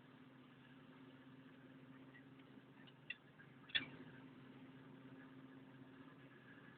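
Faint steady machine hum, like an idling engine, with two short sharp clinks about three seconds in, the second louder, as of metal parts or tools knocking together.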